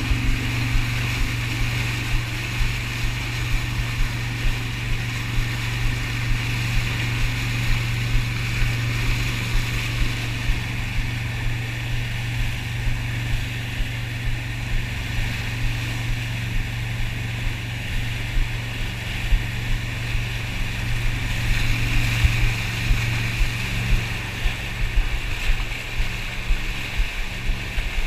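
Wake boat's engine running with a steady low drone, over the rushing, churning water of its wake around a surfboard.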